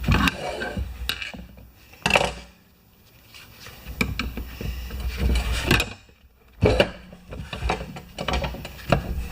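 Hand work on a small tractor's front tire and wheel on a manual tire changer: irregular clunks, knocks and scraping of tools against the stiff tire and rim, with a short pause about six seconds in.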